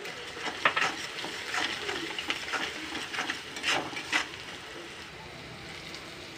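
Metal spatula scraping and stirring crushed onions frying in mustard oil in a metal kadhai, over a steady sizzle. The stirring strokes come irregularly and stop about four seconds in, leaving the sizzle.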